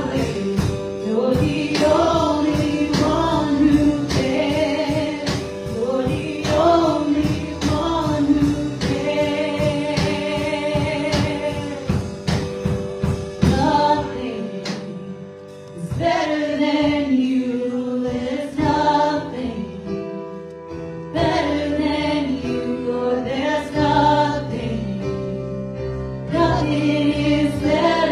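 Live gospel worship music: singers with keyboard and a drum kit playing a slow praise song. The drums keep a steady beat for about the first half, then largely drop away, leaving the voices over the keyboard.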